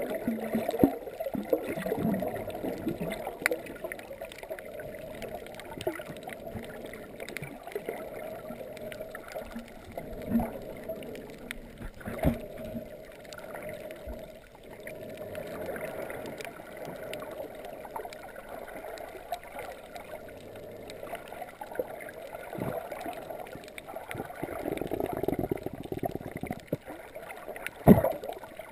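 Muffled rushing and gurgling of water heard underwater while snorkeling over a reef, with scattered clicks and a few knocks, the loudest near the end.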